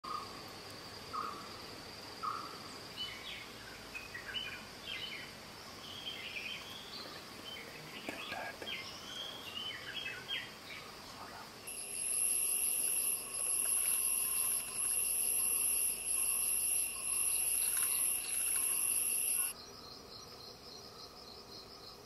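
Forest ambience dominated by insects: a steady high-pitched insect drone with scattered short bird chirps and calls through the first half. About halfway a much louder high-pitched insect buzz with a regular pulse takes over, then cuts off suddenly near the end, leaving a quieter pulsing insect trill.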